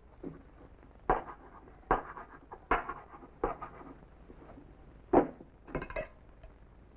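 A tin cup knocking and clinking on a wooden table: about six short knocks, four evenly spaced in the first few seconds, then two more close together near the end.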